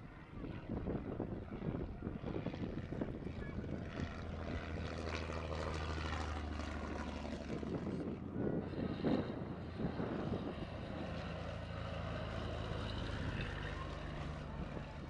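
Propeller biplane's piston engine running as the plane flies past, with wind noise on the microphone. About eight seconds in, the engine sound changes as the footage moves from one biplane's pass to another.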